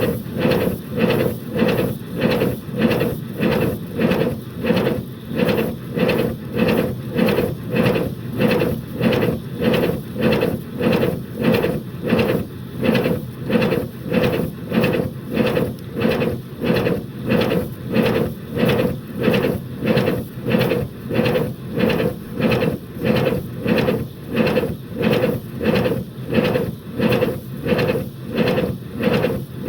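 5-inch gauge BR Class 9F model locomotive running on a rolling road, its exhaust beating steadily at about two beats a second.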